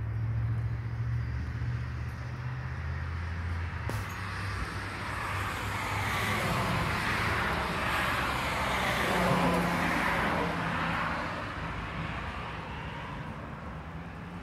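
A car driving past on the street: tyre and engine noise swells to a peak about two-thirds of the way through, then fades away. A low rumble runs underneath for the first few seconds and stops about four seconds in.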